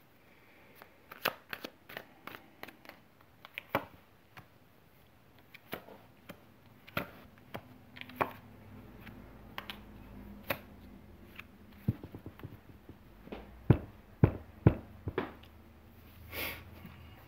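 Tarot cards being shuffled and handled on a table: irregular clicks and taps, several sharper ones close together near the end, with a brief rush of noise just before the close.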